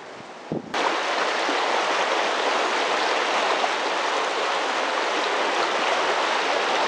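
Steady rush of fast-flowing water from a river or waterfall, cutting in abruptly about a second in after a brief quieter stretch with a soft thump.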